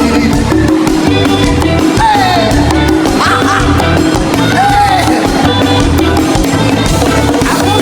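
Loud worship music with a pulsing bass beat and a held note, with voices sliding up and down over it.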